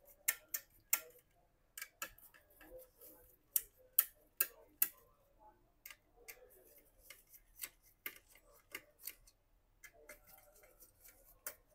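Light, irregular clicks and taps of a small screwdriver, loose screws and a copper heat-pipe heatsink being handled as the heatsink is unscrewed and lifted off a laptop motherboard.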